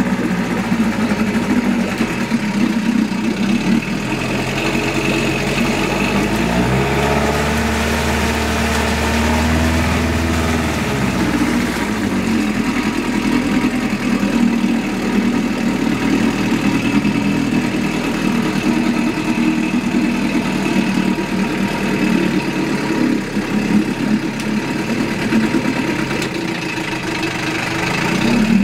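1990 Johnson 4 hp two-stroke outboard motor running smoothly just after a cold start. Its speed drops for a few seconds partway through, then picks back up.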